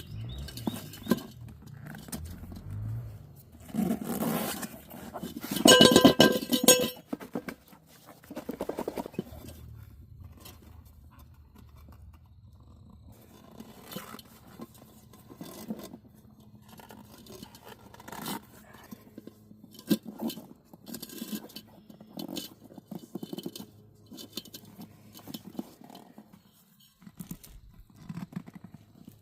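Hands and tools working an inner tube and tyre onto a rim: irregular scraping, rubbing and light clinks, with a louder pitched squeal about six seconds in.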